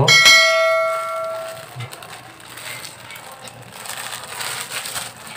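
A bright ringing chime sound effect sounds once at the start and fades over about a second and a half. After it come the crinkling and rustling of a plastic bag of flour being squeezed and kneaded in the hands.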